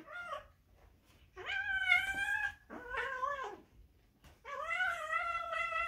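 Kitten meowing four times while it wrestles its own tail, a short cry, then two drawn-out cries with a shorter one between them.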